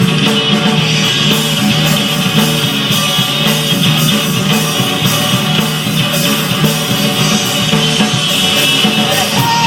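Rock band playing an instrumental passage: electric guitars and a drum kit keeping a steady beat, with no singing.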